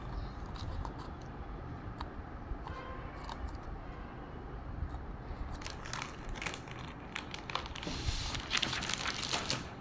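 Thin plastic bottle crinkling and crackling as it is squeezed and handled, the crackles coming thick and fast in the second half, over a steady low background rumble.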